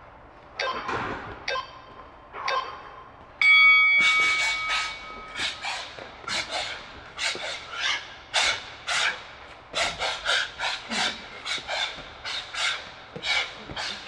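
Interval timer beeping three times about a second apart, then sounding a long ringing tone, the loudest sound, that starts the Tabata work round. A fast run of short, sharp hissing exhales follows, two or three a second, in time with shadowboxing punches.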